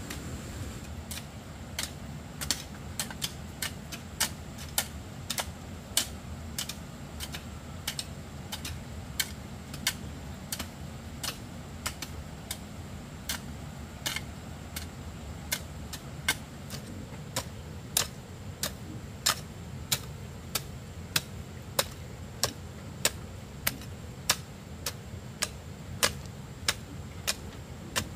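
A series of sharp, irregular taps or knocks, about two a second, over a steady low rumble.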